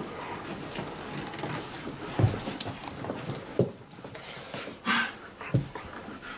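Dogs being towel-dried: a towel rubbing on wet fur, a few dull thumps, and a dog panting.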